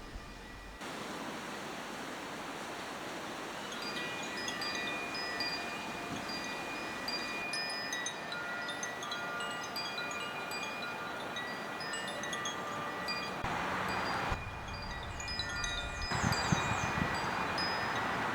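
Wind chimes ringing, with many overlapping metallic tones each held for a second or more, over a steady outdoor hiss of wind.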